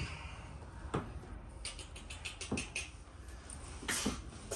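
Knocks and a quick run of clicks from a car's plastic bumper cover being worked into place against its clips. The loudest knock comes near the end.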